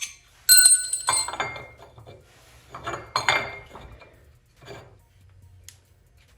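Loose metal parts of the wheel spacer assembly clinking against the hub and each other. A sharp ringing clink comes about half a second in, a second cluster about three seconds in, and a few smaller knocks after.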